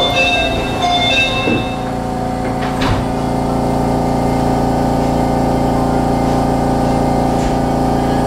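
Steady mechanical hum inside a Disney Resort Line monorail car, made of several steady tones. A few brief high tones and two light knocks come within the first three seconds.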